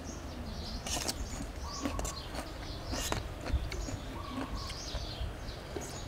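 Birds chirping repeatedly in the garden, with a few short clicks and crunches from eating with a spoon.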